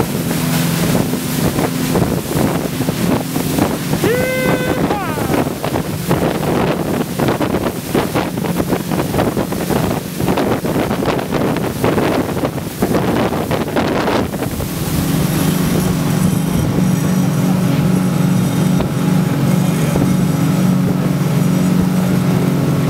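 Twin 300 hp Yamaha outboard engines running at high speed with the throttles open, a steady drone under wind buffeting the microphone and rushing water. About fourteen seconds in the wind noise drops away and the engines' even drone comes through clearly.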